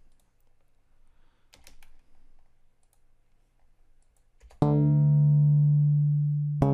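Deep synth bass playing sustained low root notes: the first starts about four and a half seconds in and the next about two seconds later. Before that, only a few faint clicks.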